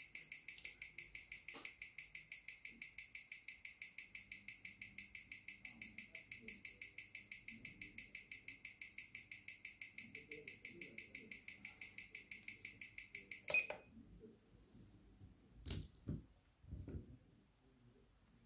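Ticking of a Seiko 6R15 automatic movement picked up by a timegrapher's microphone, an even six ticks a second (21,600 beats per hour). The movement is running at a low amplitude of about 175°, blamed on poor factory lubrication. The ticking stops at a sharp click about 13 seconds in, followed by a louder knock and softer handling thuds as the watch is repositioned on the stand.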